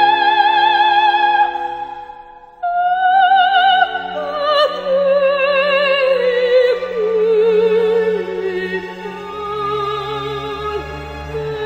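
Background music: a melody of held notes with strong vibrato over a steady accompaniment. One note fades out about two seconds in, and a new phrase begins just after.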